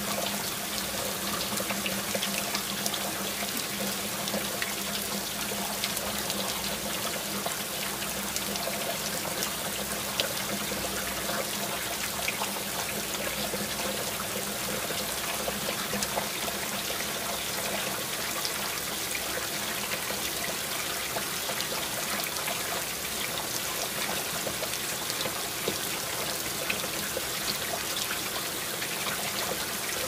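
Fountain water splashing steadily into its basin.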